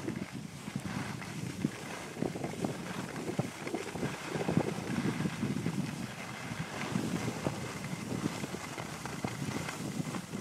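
Wind buffeting the microphone in constant rough gusts, the rush of air while moving downhill on skis.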